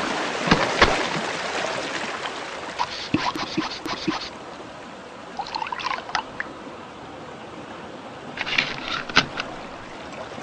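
Foley of a drink being drawn from a keg tap into a plastic cup: short bursts of trickling and small clicks, three times, over a steady hiss.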